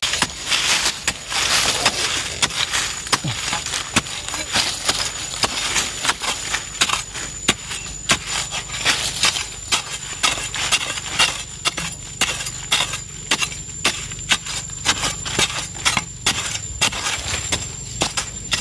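A narrow-bladed digging spade chopping into hard, dry soil in repeated sharp strikes, roughly two a second, irregular in spacing.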